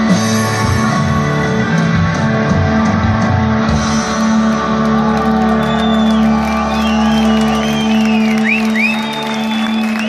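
Live rock band with electric guitars, drums and keyboards playing the last bars of a song, then holding a final sustained chord from about four seconds in. Over the held chord the audience cheers and whistles.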